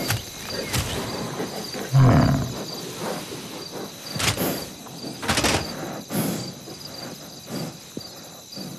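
Evening nature ambience of crickets chirping steadily, with one loud, low animal grunt about two seconds in and scattered rustles and clicks.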